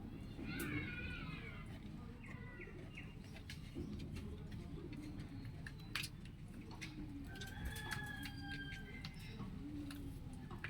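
Farmyard birds calling softly: a string of short, low calls spaced about a second or more apart, a brief patch of high chirping near the start, and a held whistling call about three quarters of the way through, over scattered clicks.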